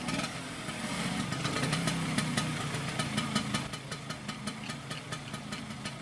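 Vintage motor scooter's small engine idling, with a fast, even ticking rhythm.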